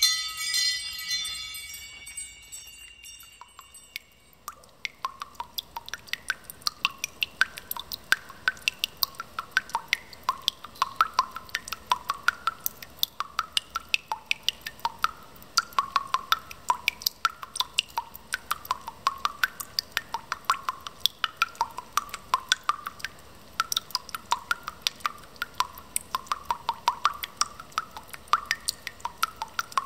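A chime rings and fades away over the first three seconds. Then water drips in a steady, irregular patter, several short plinking drops a second.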